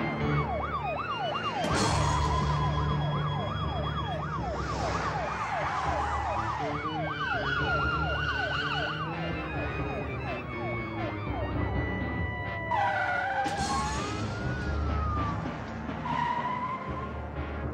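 Several police car sirens going at once: one yelps in a fast rise-and-fall of about two or three sweeps a second, while others wail in slower wavering sweeps. The fast yelp stops about halfway through.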